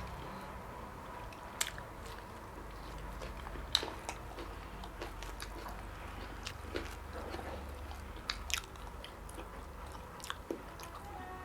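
Close-miked chewing of a mouthful of naan and butter chicken, with scattered small wet mouth clicks.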